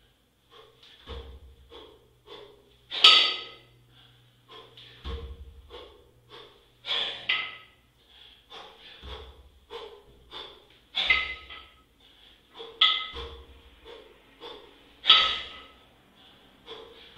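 A kettlebell lifter breathing hard through a set of double-kettlebell jerks, with quick breaths and sharp, loud exhales. A dull thud comes roughly every two seconds as each rep ends.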